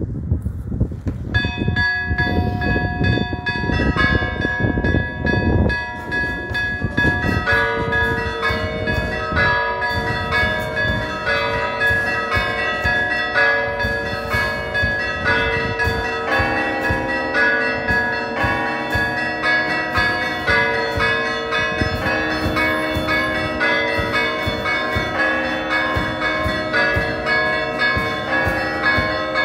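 Orthodox church bells ringing a continuous festive peal, many strikes overlapping and ringing on, starting about a second in. Wind rumbles on the microphone for the first few seconds.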